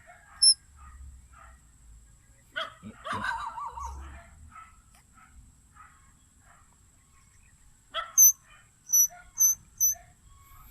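A dog barks about three seconds in. Near the end come four sharp, high chirps, one after another. Faint chirping goes on throughout.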